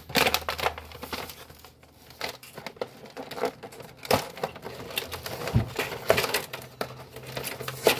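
Cardboard gift box with a clear plastic window being handled and opened: irregular crinkling and rustling of the packaging with small sharp clicks.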